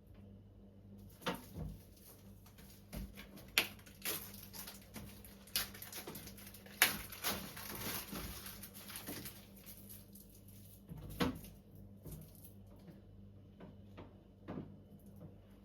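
Irregular clicks, knocks and rustling of food containers and packaging being handled and set down, busiest in the first two thirds, over a faint steady low hum.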